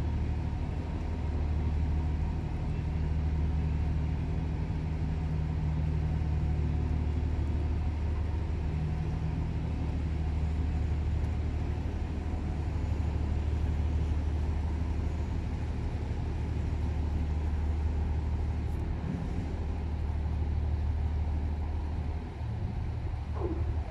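Marine diesel engine running steadily, a low even drone.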